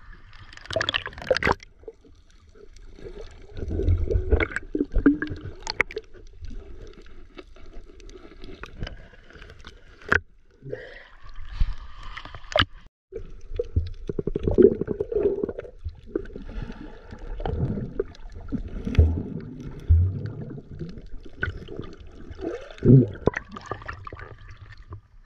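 Seawater sloshing and gurgling around a GoPro held at the waterline as it dips in and out of the surface, with irregular splashes and low bumps.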